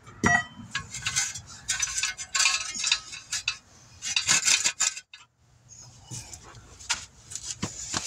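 Red steel jack stand being handled and set under the car: irregular metal clinks, knocks and rattles, with a short pause about five seconds in.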